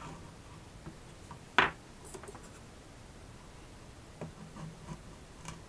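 Quiet room tone with one sharp click about one and a half seconds in, followed by a few faint ticks and light handling noises near the end.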